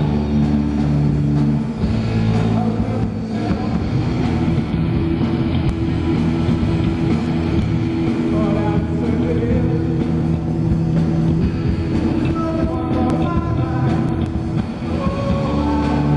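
Live rock band playing loudly: electric guitar, electric bass and drum kit.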